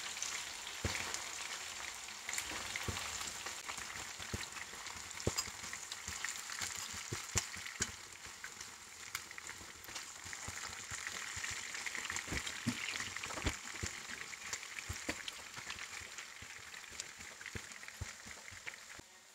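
Marinated chicken pieces shallow-frying in hot oil in a nonstick pan: a steady sizzle with scattered pops and clicks, as the pieces are turned with a metal spoon to fry the other side.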